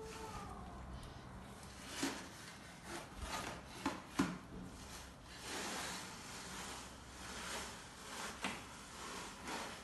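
A plastic mesh basket holding potatoes, scraped across a tiled floor in short pushes. A few sharp knocks come about two and four seconds in.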